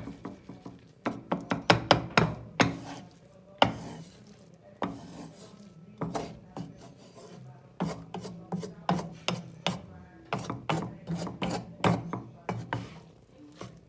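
Wooden spatula scraping and turning fried rice around a wok, in repeated irregular strokes as the rice is stir-fried and mixed.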